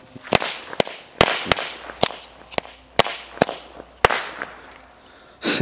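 Firecracker mat of small packet crackers going off: about nine sharp bangs at uneven intervals, roughly two a second, over about four seconds. The bangs are weak, typical of packet crackers.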